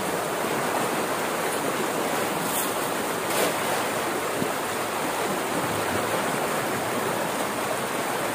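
Steady rushing of flood water pouring out of a culvert into a small stream. About three seconds in there is a faint brief sound as a cast net is thrown into the water.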